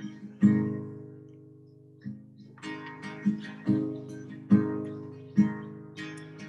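Acoustic guitar strummed: one chord about half a second in rings out and fades, then steady strumming picks up from about two seconds in.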